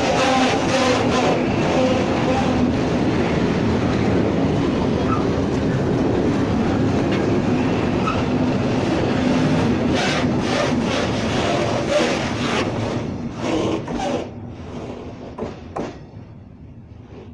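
Freight wagons of open gondola type rolling slowly past at close range, their wheels running on the rails with occasional sharp clanks over rail joints. The last wagon passes about thirteen seconds in, and the sound fades away.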